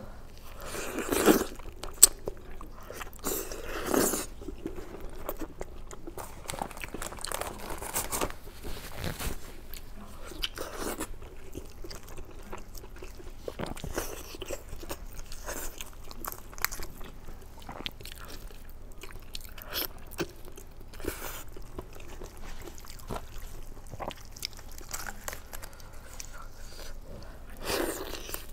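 A person biting and chewing kiln-roasted chicken close to the microphone, in an irregular run of bites and chews, with louder bites about a second in, around four seconds in and near the end.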